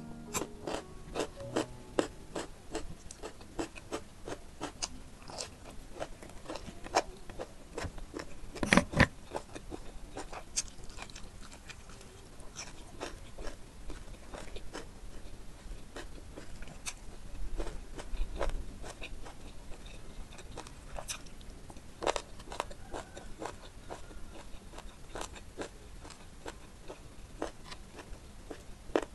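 Close-miked eating sounds: crisp bites of raw cucumber and chewing of spicy chicken curry with rice, many sharp crunchy clicks throughout. The loudest crunch comes about nine seconds in.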